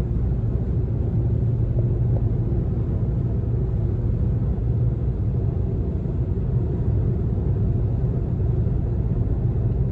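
A car driving on the road: a steady low rumble of engine and road noise.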